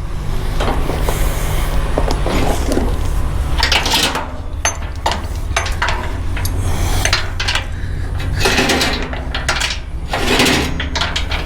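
Steel chain clanking and rattling against metal as it is threaded around the cannon's axle, with many sharp irregular clinks. A loader's engine runs steadily underneath.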